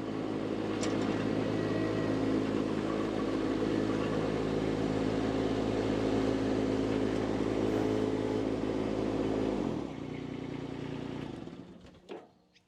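Mini skid steer's engine running steadily, then dropping to a lower speed about ten seconds in and shutting off, followed by a couple of light clicks.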